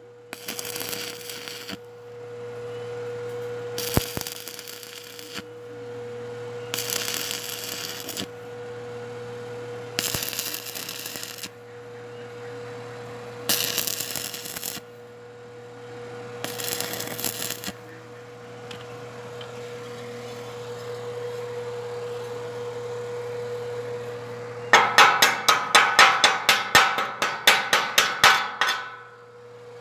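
Stick arc welding on steel square tubing: the electrode's arc crackles and hisses in short bursts of a second or so, about every three seconds, over a steady electrical hum. Near the end comes a quick run of sharp metal knocks, about four a second.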